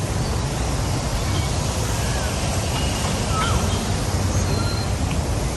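Steady outdoor rumble of wind or distant traffic, with a few faint, short bird chirps and whistles scattered through it.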